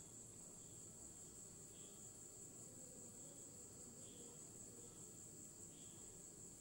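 Near silence: a faint, steady high-pitched whine, with soft faint blips about once a second.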